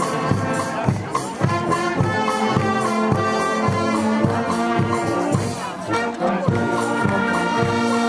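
Brass band playing a piece with held brass chords over a steady drum beat.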